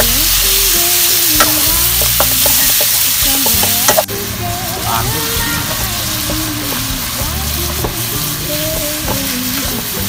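Pork, liver and meatballs sizzling in hot oil in a wok while a wooden spatula stirs them, scraping and knocking against the pan with a few sharp clicks. The sizzle drops in level suddenly about four seconds in.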